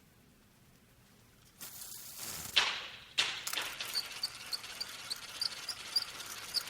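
Fishing rod and reel: a swish and rush of line about two seconds in, then the reel clicking rapidly and evenly over a steady hiss.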